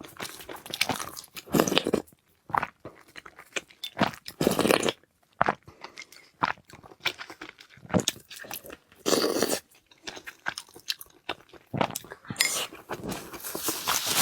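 A person biting and chewing crunchy food close to the microphone: several loud crunches with quieter chewing clicks between them.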